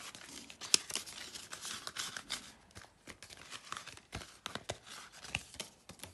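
Banknotes and a paper envelope rustling and crinkling as cash is handled and stuffed, with many small sharp taps and one loud click about three-quarters of a second in.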